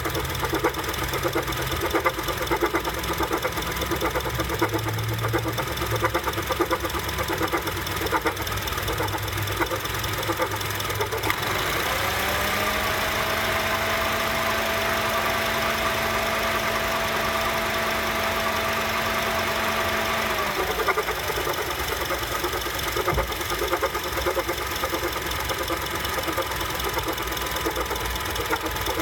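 2007 Honda CR-V engine idling with an odd, irregular clunking. About twelve seconds in, the air-conditioning compressor engages with a rising whine that then holds steady, and the clunking goes away. About twenty seconds in, the AC cuts out and the clunking comes back.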